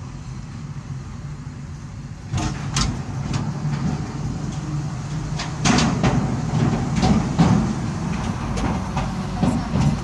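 Car tyres rolling onto and across a steel truss bridge, heard from inside the cabin: about two seconds in, the steady road noise gets louder and turns into a series of metallic clanks and knocks as the wheels pass over the bridge's metal deck panels and joints.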